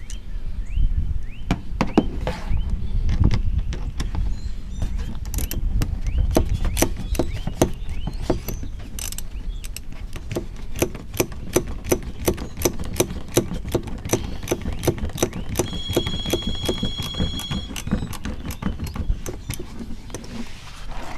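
A socket ratchet clicking in a steady run of sharp clicks, about four a second, as the spoiler's mounting bolts are turned down. A low rumble sits underneath, and a brief steady high tone sounds about 16 seconds in.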